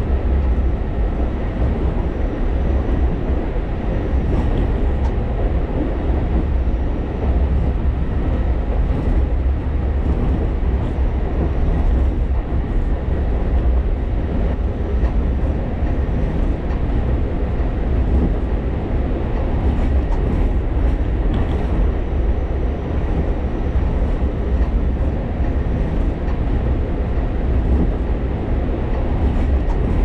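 Alishan Forest Railway train running on the mountain line, a steady low rumble of the moving train that holds even throughout.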